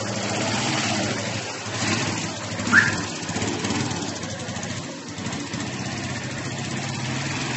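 Small motorcycle engine running steadily as the rider pulls away and rides off. A brief high rising chirp cuts in just under three seconds in.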